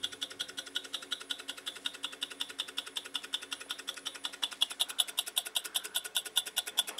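Homemade transistorless PC fan motor running at low voltage, about 7 volts. Its wire contact switch ticks rapidly and evenly, roughly ten ticks a second.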